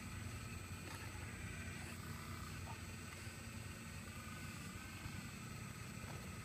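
Excavator running steadily: a low engine drone with a higher, steady whine above it.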